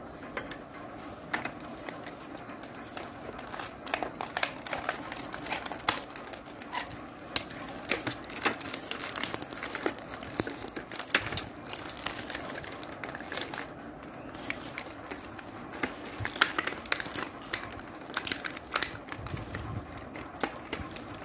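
Plastic bubble wrap crinkling and rustling as it is pulled apart and unwrapped by hand, with many irregular sharp crackles.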